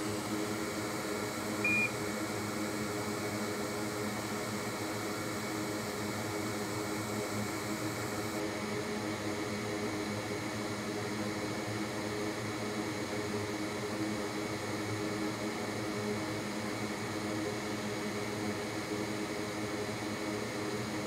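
Steady whirring hum of bench equipment running, fan-like, with a short high beep about two seconds in. The high hiss drops slightly about eight seconds in.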